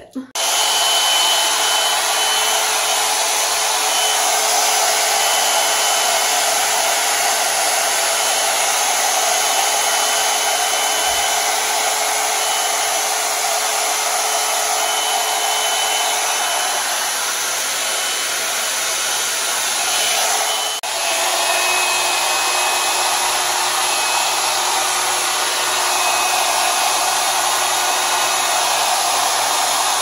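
Plavogue one-step hot air brush (a hair-dryer brush) blowing hot air through wet hair: a steady, loud rush of air with a faint motor whine. It comes on at the very start, dips briefly about two-thirds of the way in, and comes back with a slightly lower whine.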